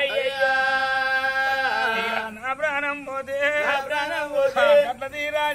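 A male Oggu Katha singer's voice in Telugu folk narrative song: one long note held for about two seconds, then a wavering, ornamented melodic line, with a steady low tone underneath.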